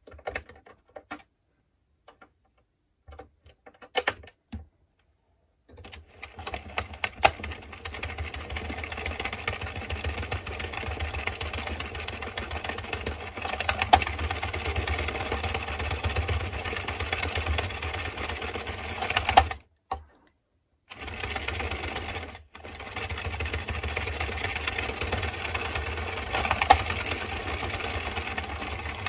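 Addi Express Kingsize circular knitting machine being hand-cranked, its needles clattering steadily around the cam track as rows of waste yarn are knitted. A few separate clicks come first, and the cranking stops briefly twice after about twenty seconds.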